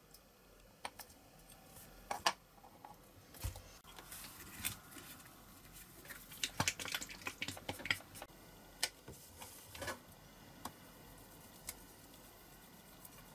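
Scattered small clicks, taps and rustles of hands handling small plastic model-car parts on a cutting mat, with a quick run of clicks about six to eight seconds in.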